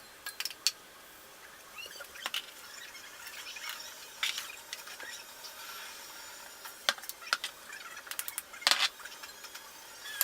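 Kitchen utensils clinking and knocking against dishes, with scattered sharp clicks and brief squeaks, and a cluster of louder knocks near the end.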